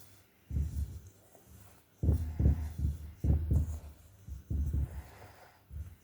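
Dull low thumps at an uneven pace from hands kneading and rubbing butter into flour in a mixing bowl, with the bowl knocking on the work surface.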